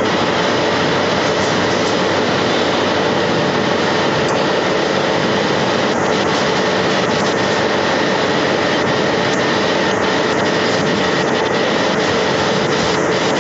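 Factory production-line machinery around a wire-mesh conveyor running steadily: a loud, even rush of noise with a faint steady hum, and light ticks now and then.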